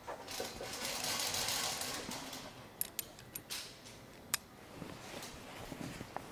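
Rustling handling noise for about two seconds, then four sharp metal clicks as a new spark plug is fitted into a magnetic spark plug socket.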